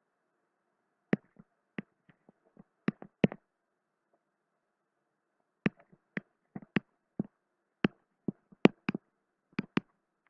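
Stylus tapping on a tablet while handwriting: irregular sharp taps, a few at a time, with silent gaps between, and a busier run of taps in the second half.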